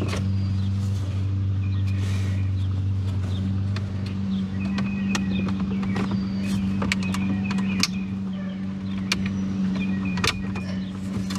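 Scattered sharp clicks of plastic center-dash trim being worked loose at its clips and spring tabs, over a steady low hum.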